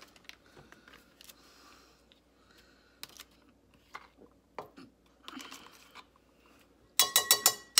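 A spoon scooping and scraping thick Greek yogurt out of a tub, soft and intermittent. Near the end, a quick run of about six sharp clinks as the spoon is rapped against the rim of a dish to knock the yogurt off, each ringing briefly.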